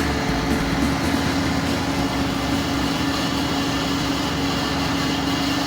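Washing machine in its spin cycle, the drum turning at speed with a steady hum and one constant tone from the motor.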